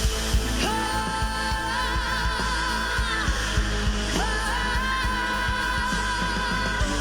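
A male singer's very high voice holding long notes, each scooped up into pitch and sustained with vibrato, three times over. Band backing with a steady drum beat underneath.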